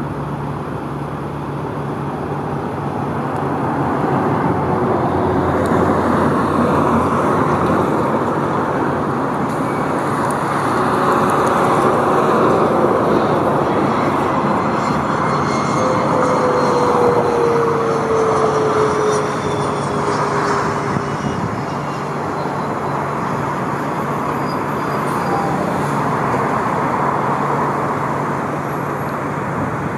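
Narrow-body jet airliner passing, its engine noise swelling a few seconds in and slowly easing, with whining tones that slide down in pitch midway through.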